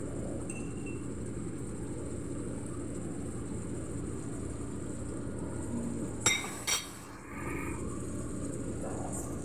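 Chicken and tomatoes cooking in a pot on a gas stove, a steady hiss, with two sharp clinks close together about six and a half seconds in.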